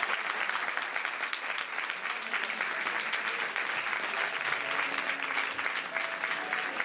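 Audience applauding steadily, a dense crackle of many hands clapping. Faint instrumental music comes in under it about five seconds in.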